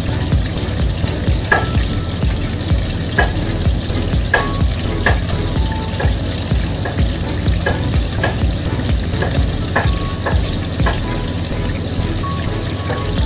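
Hot oil sizzling steadily in a wok, with background music carrying a steady low beat over it.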